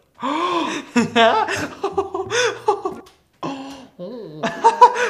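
A man laughing and making wordless vocal noises and exclamations.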